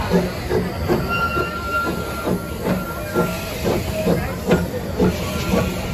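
Small steam locomotive, the Myron H., rolling slowly past under steam, hissing, with a regular beat two to three times a second. A thin high squeal is heard for about a second near the start.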